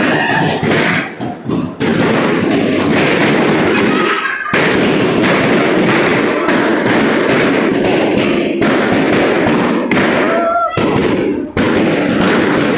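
Many balloons popping in rapid, overlapping succession, a dense crackle of sharp bangs that pauses briefly twice, with voices shouting among them.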